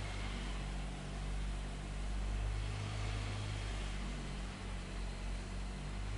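An engine running steadily, giving a low hum over a wash of mechanical noise.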